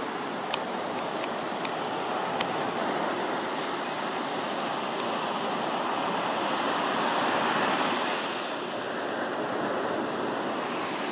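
Ocean surf washing on a beach, a steady rush that swells to its loudest about two-thirds of the way through as a wave breaks and runs up, then eases. A few light clicks in the first couple of seconds.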